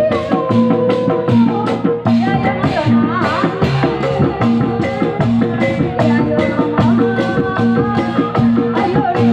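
Loud live Sundanese bangreng music: a steady, driving drum and percussion beat of about two to three strokes a second, with a wavering melodic line over it.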